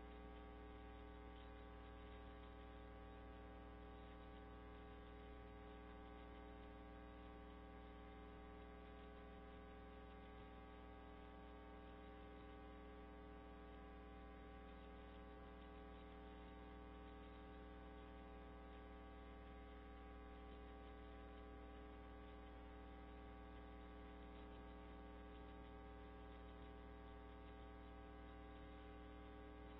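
Near silence with a steady electrical mains hum, a buzz of many even tones and faint hiss, unchanging throughout.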